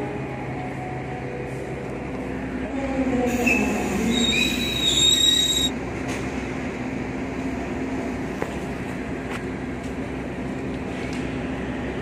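Passenger train at a station platform, with a steady low drone. A high metallic squeal from the train's wheels and brakes sounds for about two seconds near the middle and is the loudest part.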